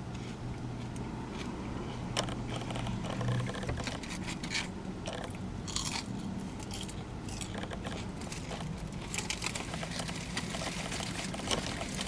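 A person chewing and crunching food close to the microphone, with many short irregular clicks over a steady low hum.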